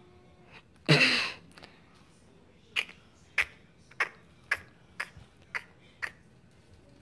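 A loud half-second burst of noise about a second in, then a run of sharp clicks about two a second, like footsteps on a tile floor.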